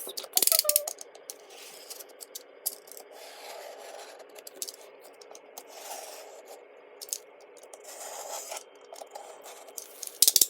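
Packaging being scraped and rubbed as it is cut open with a knife, with a few sharp clicks about half a second in and then repeated soft scraping strokes.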